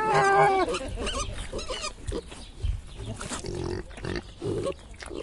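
Pigs grunting and squealing: a drawn-out pitched squeal at the start, then a run of short, scattered grunts.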